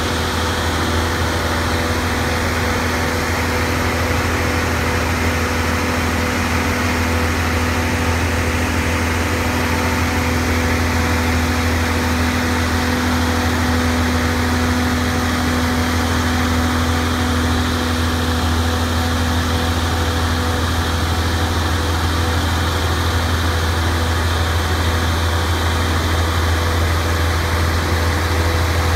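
Heavy engine of a house-moving rig running steadily as it creeps past, a deep constant drone with a steady mid-pitched tone that fades away about two-thirds of the way through.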